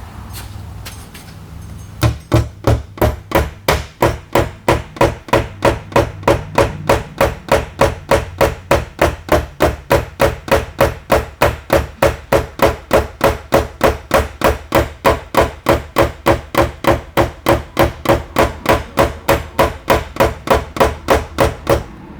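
Rapid, even hammer taps on an aluminum liftgate panel, about three a second, starting about two seconds in and stopping suddenly near the end: a paintless dent repair tap-down knocking high spots level.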